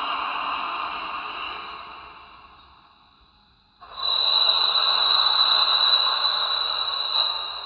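Reconstructed dinosaur vocalizations: a long, breathy, hissing call fades out, then about four seconds in a second starts abruptly, carrying a thin, steady high whistle, and fades near the end.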